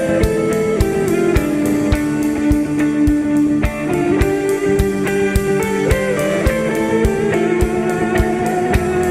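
Rock band playing an instrumental passage between vocal lines: electric guitar carrying a melodic line of held notes over bass and a steady drum beat.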